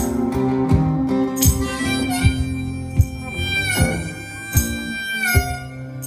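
Blues harmonica in a neck rack played over strummed acoustic guitar, coming in about one and a half seconds in, with a note bent down and back up near the middle. A sharp knock keeps the beat about every three-quarters of a second.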